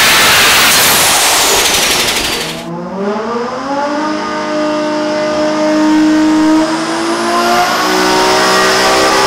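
Turbocharged 2JZ inline-six on an engine dyno. It runs loud under load with a high whine falling in pitch, and the sound cuts off suddenly about three seconds in. Then the engine note climbs steadily as the revs rise, with a high rising whine joining near the end.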